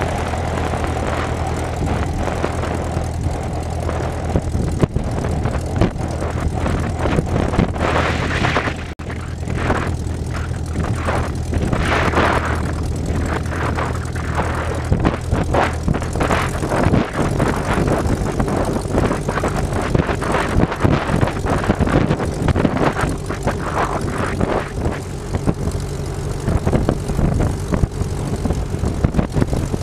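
Small single-engine propeller plane's piston engine running at low power while the aircraft rolls along the runway and taxis, heard from a camera on the tail. The engine note shifts about halfway through, with uneven rushing noise over it.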